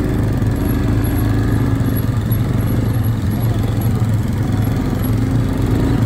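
Quad bike engine running steadily under way on a dirt road, heard close from the rider's own seat, with an even low hum.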